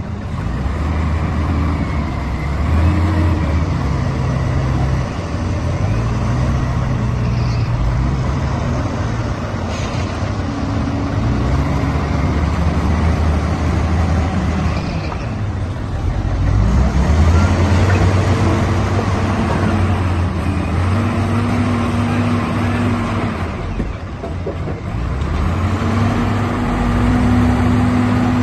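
Diesel engines of large wheel loaders, among them a Cat 980, running together and revving up and down in turns as the machines lift and work their buckets while loading a dump truck.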